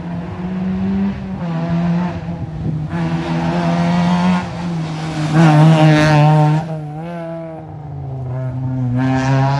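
Rally car engine accelerating hard through the gears on a stage, its pitch climbing and dropping back at each shift. It is loudest as it passes about halfway through, then the note falls away and climbs again near the end.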